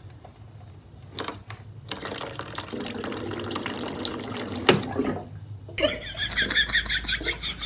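Water dispenser tap pawed open by a cat, with clicks of the plastic tap lever and a short run of water. A louder, rhythmic splashing starts near the end.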